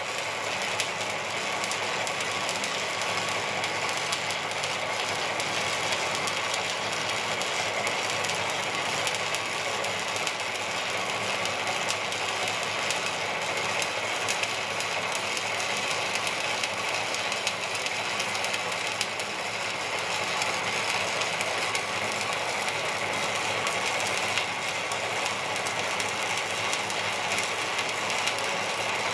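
Electric welding arc crackling steadily, a dense rapid sputter that runs unbroken as a long weld is laid.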